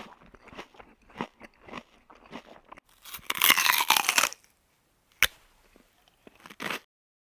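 Close-up chewing of crunchy food: irregular crunches, then a louder, denser stretch of crunching about three seconds in, a single sharp crack a little after five seconds and one last short crunch before it stops.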